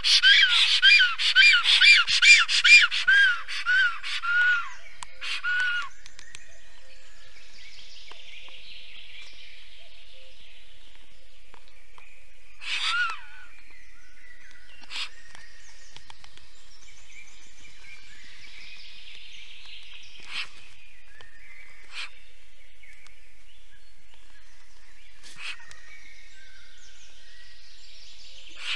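Black storks calling at the nest in a rapid run of wheezy whistled notes, each rising then falling, about four or five a second: the greeting as the mate arrives home. The calls stop about five seconds in, leaving faint songbirds singing and a few sharp clicks.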